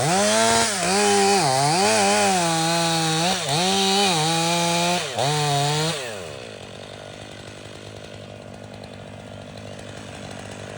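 Stihl MS 500i two-stroke chainsaw cutting through oak at full throttle, its engine pitch dipping and recovering several times as the chain bites into the wood. About six seconds in it drops back to a quieter idle.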